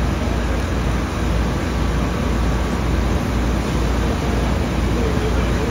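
Steady, loud street noise with a deep rumble underneath, typical of idling vehicles and city traffic.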